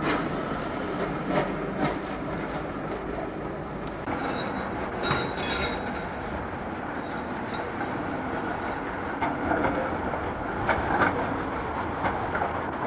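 Street trams running past, their steel wheels rumbling and clattering on the street track, with several sharp knocks over the rail joints and points.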